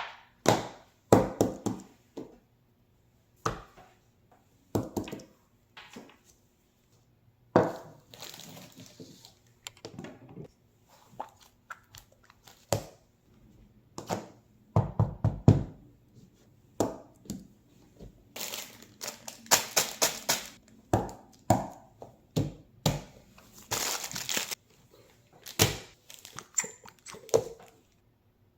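Fidget toys and plastic being handled: irregular knocks and thunks, a quick rattle about halfway through, and bursts of crinkling in the second half.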